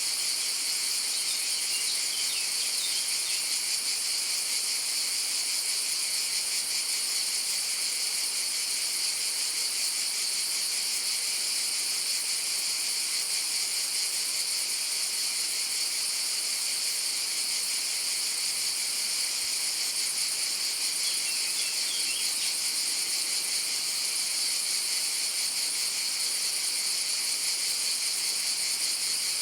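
Chorus of cicadas buzzing in a steady, unbroken high drone. A few faint bird chirps come through, near the start and again about two-thirds of the way through.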